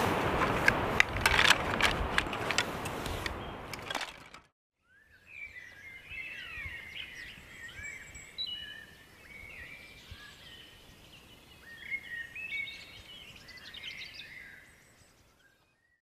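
Sea surf rushing steadily with a few sharp clicks. It cuts off about four seconds in, and quieter woodland birdsong follows: several birds chirping and whistling in quick rising and falling notes, fading out at the end.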